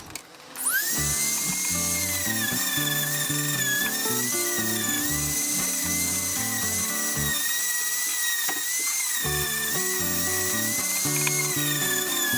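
Dremel rotary tool spinning up about a second in, then running with a steady high whine that wavers slightly as it grinds pitting off the steel pliers. Background music with a bass line plays underneath.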